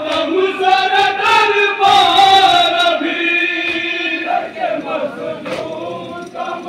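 A group of men chanting a noha in unison, an unaccompanied Shia mourning lament, in long, wavering held lines; the chanting grows softer in the second half.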